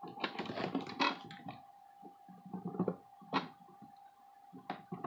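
Handling noise from fitting a laptop LCD panel into its lid: scattered light clicks, taps and rubbing of fingers and plastic as the panel is pressed into place, with a few sharper clicks. A faint steady hum runs underneath.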